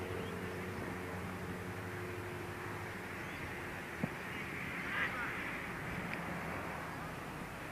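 Outdoor football-ground ambience on a worn camcorder recording: a steady low hum through the first few seconds, then a single sharp thud of a football being kicked about four seconds in, and a brief distant shout about a second later.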